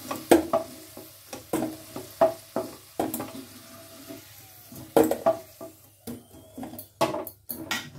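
Wooden spatula knocking and scraping against a black-coated kadai as fried potato wedges are lifted out of hot oil one by one, in quick irregular clacks, with faint oil sizzle underneath.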